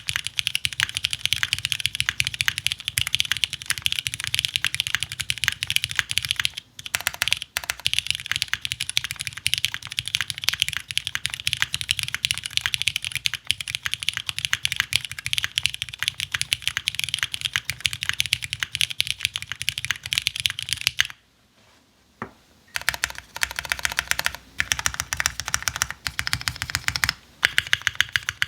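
Fast continuous typing on a custom 60% mechanical keyboard with vintage Cherry MX Black linear switches on a galvanized steel plate in an o-ring mount, with GMK keycaps. The keystrokes pause briefly a little after 21 seconds in, then resume.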